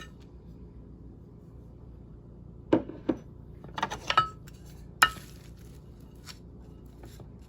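Kitchenware clinking and knocking against a bowl a handful of times, with one short ringing clink, as shredded cheese is measured and added. The sharpest knock comes about five seconds in.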